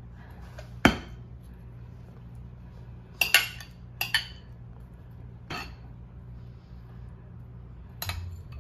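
A metal serving spoon clinks and scrapes against glass bowls while berries are spooned out. There are several sharp, separate clinks a second or two apart, with a low steady hum underneath.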